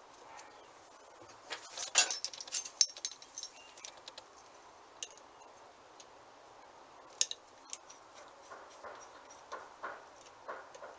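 Steel hand tools clinking and scraping against the metal parts of a bench grinder motor being dismantled. A quick cluster of sharp clicks comes about two seconds in, a few single clinks follow, and a run of regular scraping strokes comes near the end.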